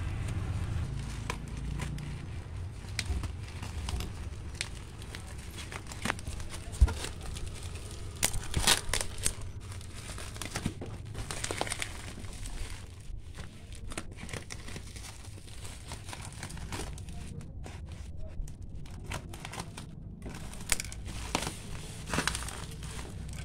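Plastic courier mailer and bubble wrap crinkling and tearing as a parcel is cut open with scissors and pulled apart by hand, with scattered sharp crackles throughout.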